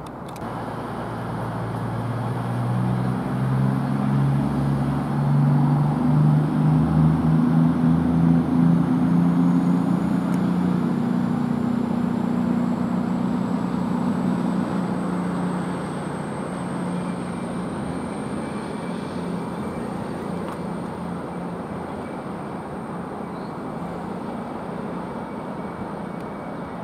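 A CrossCountry Voyager diesel multiple unit pulls away with its underfloor diesel engines revving. The engine note climbs for about the first ten seconds and is loudest around then. It then holds steady and slowly fades as the train draws off, with a faint high whine rising alongside.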